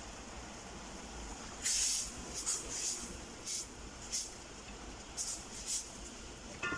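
Wooden spoon stirring thick chickpea curry in a metal pot, a few short scraping strokes against the pot over a steady hiss. A brief metallic clink rings out near the end.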